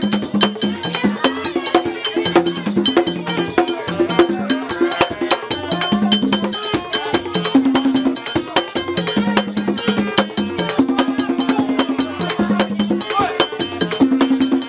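Music with busy percussion: a fast run of sharp clicking, wood-block-like strokes over a short repeating bass figure.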